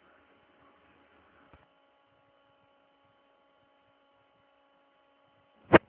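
Faint steady electrical hum, with a light hiss that drops away about a second and a half in, then a single sharp click near the end.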